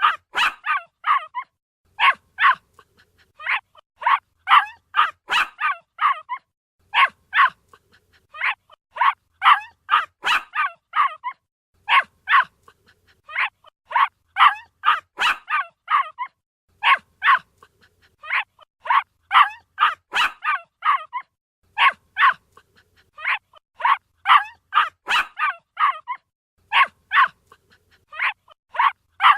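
A puppy barking in rapid high-pitched yaps, in bursts of about five to eight with short pauses between, repeating steadily.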